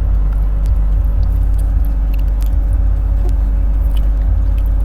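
A steady low rumble with a constant hum beneath it, and a few faint scattered clicks.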